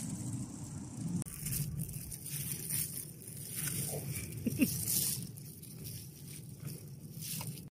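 Outdoor wind noise on the microphone, with a brief pitched sound about four and a half seconds in; the sound cuts off abruptly near the end.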